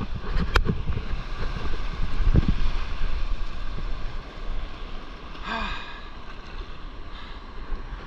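Whitewater rushing and foaming past a paddleboard as it rides a broken wave in to shore, with wind buffeting the microphone. The rush is louder over the first four seconds and eases after; a few sharp knocks early on and a short voice-like sound about five and a half seconds in.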